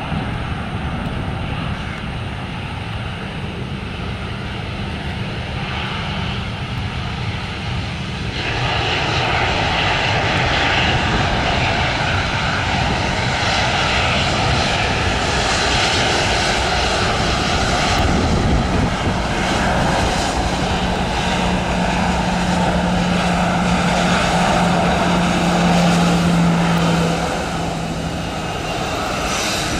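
Jet engines of an arriving Airbus A320-216 (CFM56-5B turbofans), a broad rushing noise that swells about eight seconds in and stays loud. A low steady tone comes in about two-thirds of the way through and the noise drops back near the end.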